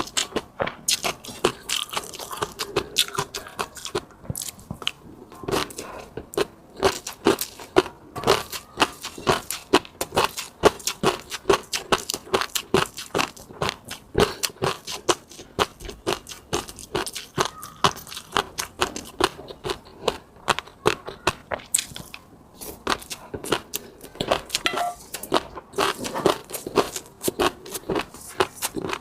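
Close-miked eating sounds: a person chewing and smacking with rapid, irregular wet clicks and pops, several a second.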